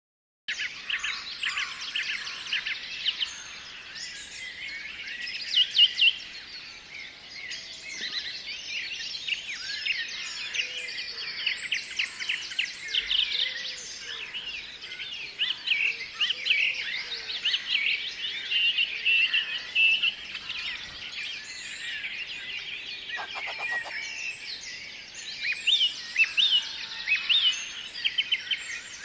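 A dense chorus of many songbirds chirping and singing at once, with overlapping quick chirps and trills and no pause.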